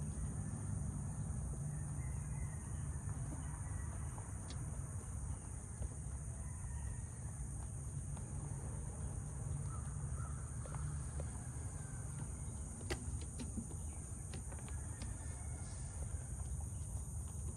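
Outdoor rural ambience: a steady high-pitched insect drone with faint bird calls now and then, over a low rumble, and a few sharp clicks in the second half.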